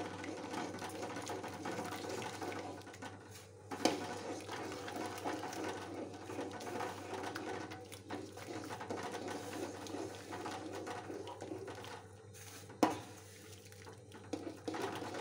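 A steel ladle stirring hot water in an aluminium pan as rava semolina is sprinkled in, giving a continuous watery swishing and scraping. There are two sharp knocks, the first about four seconds in and the second about nine seconds later.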